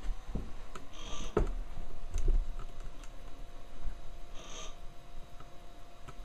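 Homemade pulse-driven coil resonance motor running: light, irregular clicking and ticking from the pulsed coils and turning rotor, with a few dull thumps in the first two and a half seconds and two short hisses, about a second in and at about four and a half seconds.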